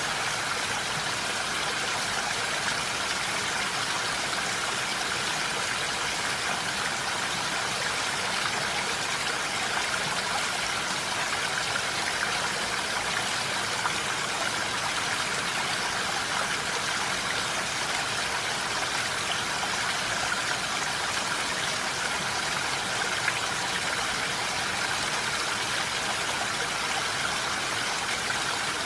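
Steady, even rushing noise with no pauses or changes, cutting off suddenly at the end.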